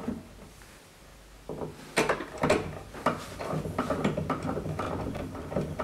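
Dulceola tabletop gramophone being wound by its crank handle: a few wooden knocks as the crank goes in, then a steady run of small mechanical clicks from the spring motor's winding gear.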